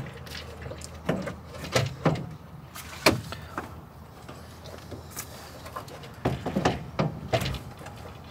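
Irregular knocks and clicks as a car radiator is pushed down into its mounting holes and its hose is handled, the sharpest knock about three seconds in.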